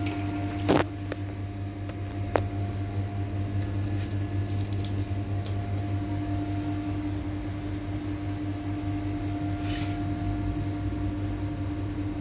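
Steady electrical machine hum with a constant low tone, broken by two sharp clicks within the first few seconds and a brief hiss near the end.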